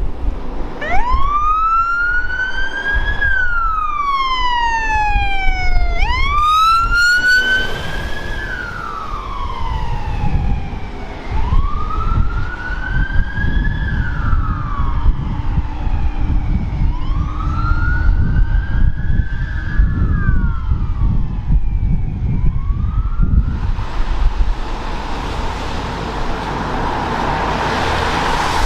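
Queensland Fire and Rescue Service fire engine sirens wailing in slow rising and falling sweeps about five seconds apart, with a flurry of quick high sweeps about six seconds in, over a heavy low rumble. The wail stops about 23 seconds in and a broad rushing noise takes over.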